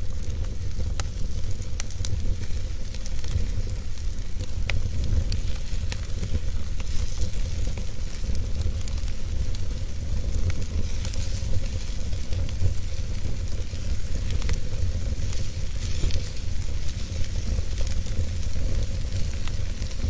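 Wood fire burning in a fireplace: a steady low rumble with scattered sharp crackles and pops from the burning logs.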